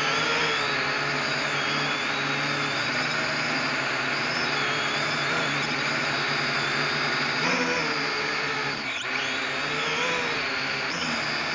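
Small camera drone's electric motors and propellers whining steadily in flight, heard close up from the drone itself, the pitch wavering up and down as it manoeuvres.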